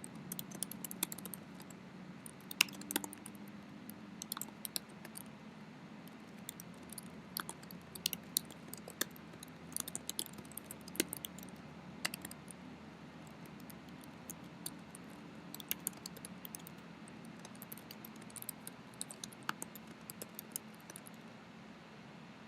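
Typing on a computer keyboard: irregular key clicks in uneven bursts, with pauses between them, over a low steady hum.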